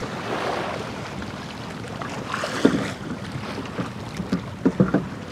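Wind buffeting the microphone aboard a small fishing boat at sea, with a few short knocks about two and a half seconds in and a quick run of sharper knocks near the end.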